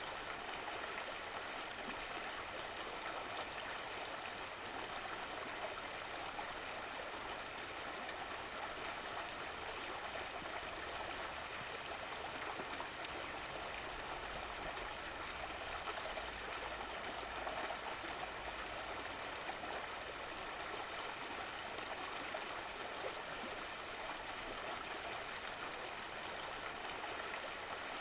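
Stream of running water, flowing and gurgling steadily.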